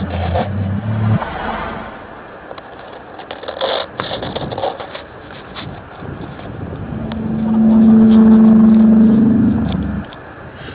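Unexplained low groaning drone with a few overtones, one of the 'strange sounds' recorded in January 2012. A first stretch stops about a second in; after a quieter spell with scattered crackles, the drone swells from about seven seconds to a loud peak and stops suddenly near the end.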